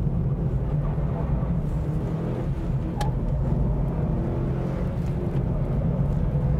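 Mitsubishi Lancer Evolution VI TME's turbocharged 2.0 L 4G63 inline-four and road noise heard from inside the cabin while it is driven hard on a timed lap: a steady low drone, with a single click about three seconds in.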